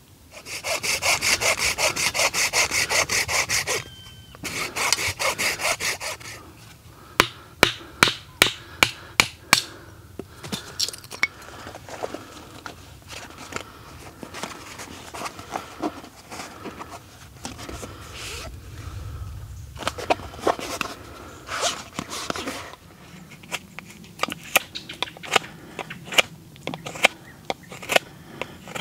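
A hand saw cutting wood in quick, even strokes, in two runs of a few seconds each with a short break between. Sharp clicks and knocks follow, then the scattered scrapes and clicks of a knife whittling wood.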